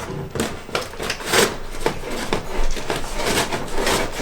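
Irregular rubbing, scraping and knocking as a metal exhaust-fan duct fitting is worked into place by hand, several short strokes a second.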